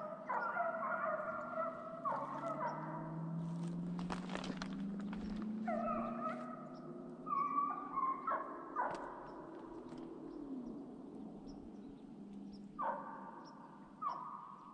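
Deer hounds baying on a trail: long drawn-out howling calls from several dogs, overlapping, with the last calls about thirteen and fourteen seconds in. A short burst of noise about four seconds in.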